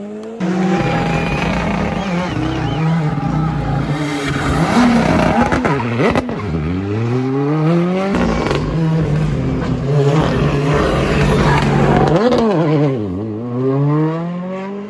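Rally car engine at high revs. Its pitch climbs in runs, holds steady, then drops sharply and climbs again twice as the throttle is lifted and reapplied.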